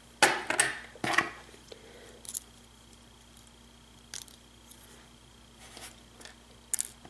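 Small metal clicks and scrapes from handling the parts of a disassembled pin-tumbler lock as a pin and its spring are taken out of a chamber. A quick cluster of clicks comes first, then single clicks every second or two.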